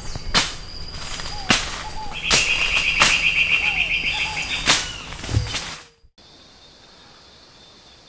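A string of sharp snapping cracks, about one a second, from plant stems being cut. About two seconds in, a high trill from an insect or bird runs for about two seconds. About six seconds in, it all cuts off to quiet background with a faint high steady insect tone.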